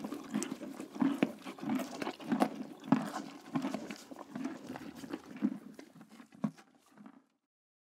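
A horse chewing a carrot: repeated crunching and munching about twice a second, growing fainter and stopping near the end.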